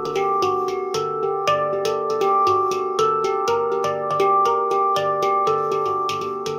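Taopan Mini handpan tuned to a Dimelodia Extended scale, struck with the fingertips in an even run of about four notes a second, each metallic note ringing on under the next.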